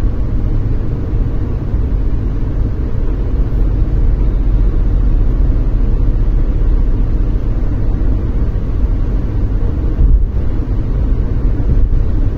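Steady road and engine noise inside a car's cabin while it cruises at highway speed: a continuous low rumble from the tyres and engine.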